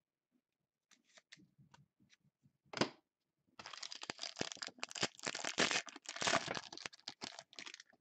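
Foil trading-card pack being torn open and crumpled by hand. A few light clicks come first, then one sharp crackle near three seconds in, then about four seconds of dense crinkling and tearing of the foil.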